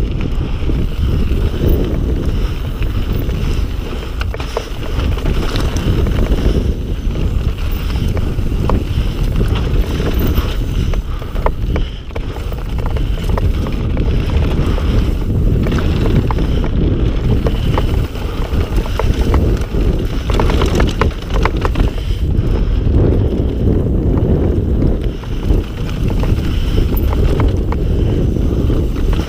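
Mountain bike riding down a rocky trail: wind buffeting the camera microphone over the rumble of the tyres, with a steady scatter of clicks and rattles from the bike over the bumps.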